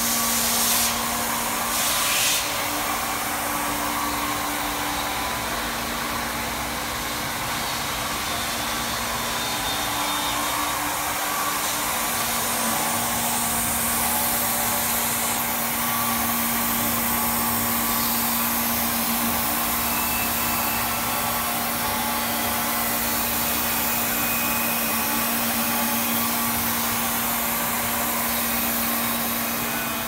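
CNC machining center running while it mills aluminium: a steady hiss with a steady low hum, with two brief louder bursts of hiss in the first few seconds.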